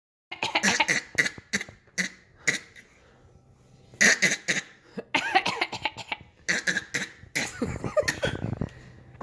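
A person fake-coughing: runs of short, forced coughs, with a pause of about a second near the first third and some voiced, throaty sounds mixed in later.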